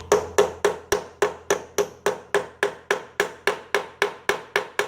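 Quick, light, evenly spaced taps, about four a second, on a quarter-inch drive socket, driving a replacement fuel inlet fitting into a lawnmower carburetor body.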